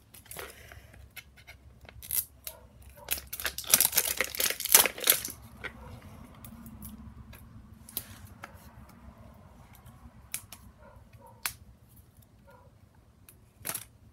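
Toy packaging being handled and torn open by hand: a burst of tearing and crinkling about four seconds in, then scattered clicks and rustles as the wrapping layers are pulled apart.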